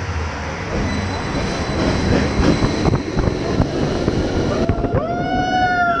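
Roller coaster train running along its track, with a loud steady rumble and rattle of wheels on the rails. Near the end a rider lets out a long, high scream that holds and then falls away.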